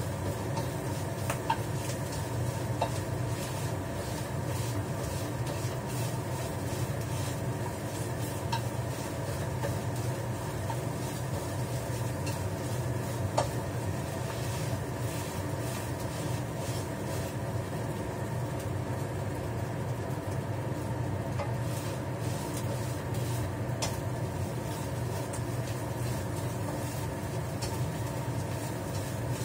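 Egg and chopped scallion frying in a pan, with a spatula stirring and now and then tapping the pan in a few sharp ticks, over a steady low hum.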